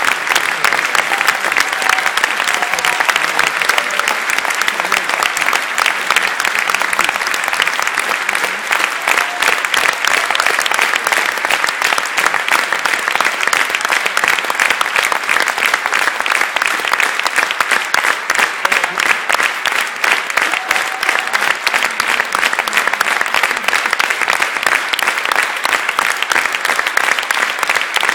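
Large theatre audience applauding: dense, steady clapping.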